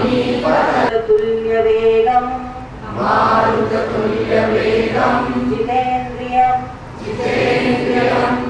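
A group of voices chanting in unison, a devotional Sanskrit chant, in held notes phrased in lines with short breaks between them.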